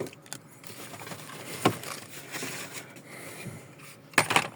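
Faint handling noise, rustling with a few sharp plastic-sounding clicks: one about a third of the way in and a louder pair near the end.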